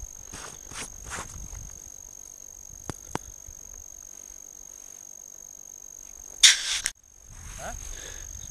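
Handling noise from a man jigging a short ice-fishing rod over a hole. There are soft rustles, two light clicks about three seconds in, and a short loud rustle a little past six seconds that cuts off suddenly. A faint steady high whine runs underneath.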